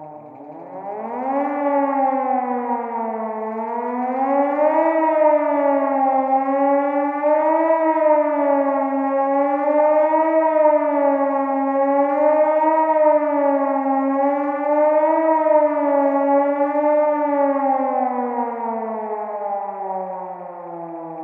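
Fire siren winding up from a low pitch in the first couple of seconds, then wavering slowly up and down about every two and a half seconds, and winding down steadily near the end.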